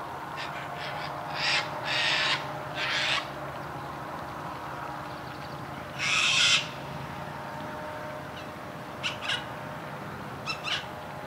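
Wild birds calling: a run of harsh, rasping calls of about half a second each between one and a half and three seconds in and again about six seconds in, then a few short, sharp chirps near the end, over a faint steady hum.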